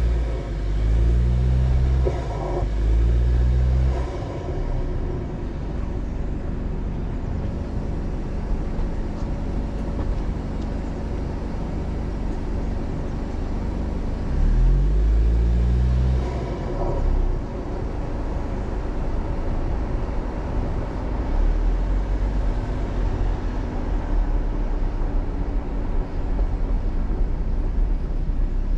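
Car driving along a road. The engine pulls up in pitch and drops back several times in the first few seconds and twice more about halfway through, as it accelerates through the gears. A steady rumble of engine and tyre noise lies underneath throughout.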